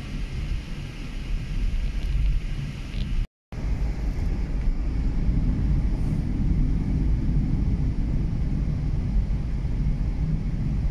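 Steady low rumble of a car driving on a snowy, slushy highway, heard from inside the cabin: tyre and road noise with engine hum. The sound drops out completely for a moment about three seconds in.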